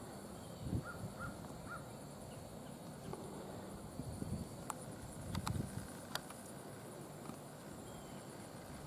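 Faint outdoor ambience: a horse's soft hoof thuds on grass, under a steady high insect buzz, with three short bird chirps about a second in and a few sharp clicks midway.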